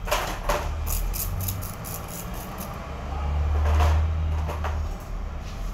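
Hairdressing scissors snipping through hair in a quick run of short sharp cuts, a few more a little later, over a low rumble that swells and fades in the middle.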